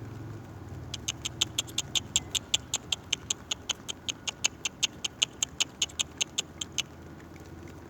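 A bird giving a rapid, even series of short high-pitched chirps, about six a second, starting about a second in and stopping shortly before the end.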